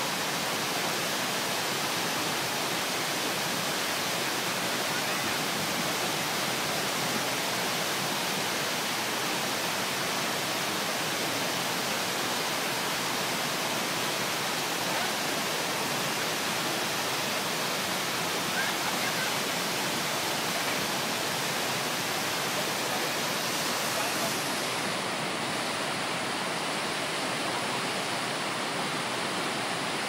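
Cusarare Falls: a tall waterfall pouring onto rocks and into the pool below, making a steady, unbroken rush of water.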